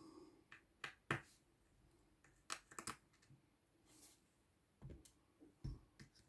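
Faint, scattered small clicks and taps, about half a dozen with quiet between them, from small repair tools and parts being handled on an opened iPhone.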